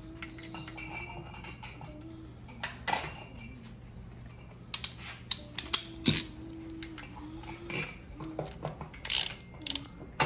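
Scattered metallic clicks and clinks of a small hand ratchet and bolts as round steel cover plates are fastened to the side of a 6.7L Cummins engine block, the loudest clink about six seconds in and a quick run of clicks near the end.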